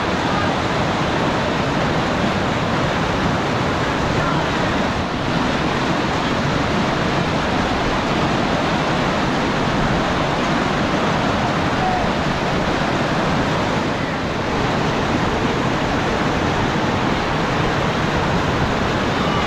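Whitewater rapid pouring over a rock ledge: a steady, loud rush of churning river water.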